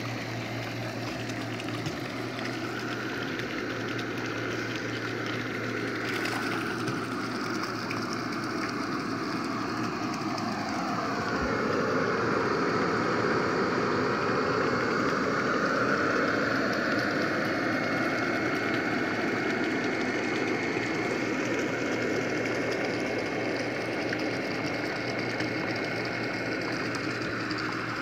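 Electric regenerative (ring) air blower running steadily for pond aeration, a constant low hum with a rushing of air. It grows louder toward the middle and eases off near the end.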